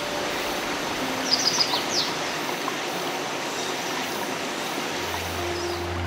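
Stream water running steadily over rocks, with a quick run of bird chirps about a second in. Soft sustained music notes sit underneath, and a deep low music note comes in near the end.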